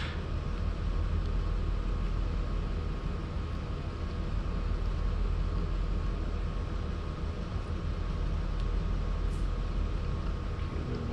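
Steady low hum and hiss of background room noise, with a faint steady tone above it.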